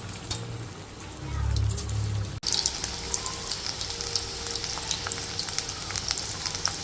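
Batter-coated raw banana slices deep-frying in hot oil: a steady sizzle full of fine crackles, which grows denser and louder after a brief break about two and a half seconds in.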